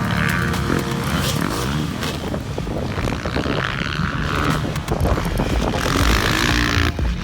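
Motocross bike engines revving and running under load, pitch rising and falling.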